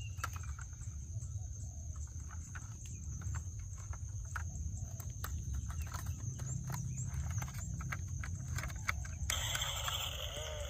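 Scattered light clicks and taps over a steady low hum. About nine seconds in, a wavering pitched sound begins and runs on.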